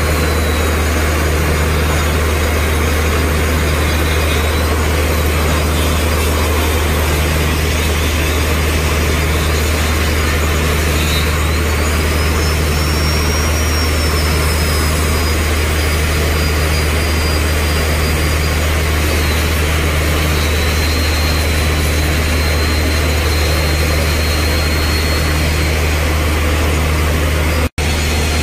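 Electric grinder with a small grinding stone sharpening the carbide buttons of a borewell drill bit, a thin high whine that rises and falls, over a loud, steady low engine drone. The sound cuts out for an instant near the end.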